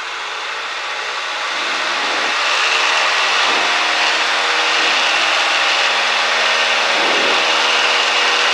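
Cessna 172's engine and propeller at full power during the takeoff roll, heard inside the cabin. The noise builds over the first few seconds, then holds steady.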